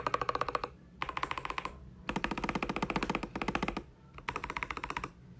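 Keychron K2 V2 mechanical keyboard with Gazzew Boba U4T 62g tactile switches, an aluminium plate, foam dampening and Tai-Hao keycaps, typed on quickly: four short runs of rapid keystrokes with brief pauses between them, the longest run in the middle.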